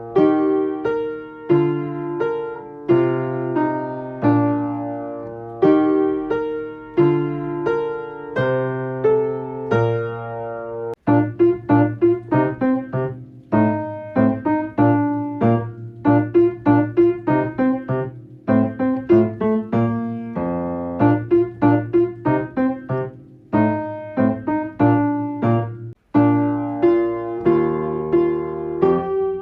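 Solo piano playing an instrumental passage with no singing. About eleven seconds in it breaks off for a moment, then goes on with quicker, shorter notes, and there is another short break near the end.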